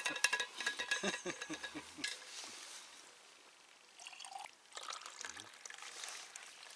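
Liquid poured from a metal thermos into a small glass jar, a soft steady trickle starting about four seconds in. Before it, laughter trails off.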